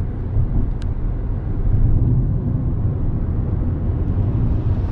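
Road and drivetrain noise inside the cabin of a moving Toyota Corolla Touring: a steady low rumble, with a single short click about a second in.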